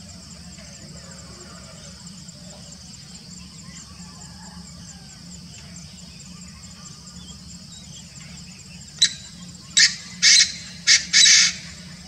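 Painted francolin calling: a burst of five loud notes about nine seconds in, the third and fifth longer than the others. Under it runs a steady high-pitched drone of insects.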